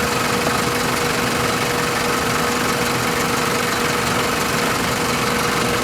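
2001 Toyota Corolla's four-cylinder engine idling steadily, a constant hum with a steady whine in it.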